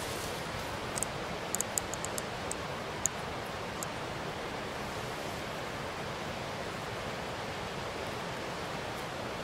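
Steady rush of running water, an even noise with no rhythm, with a few light clicks in the first few seconds.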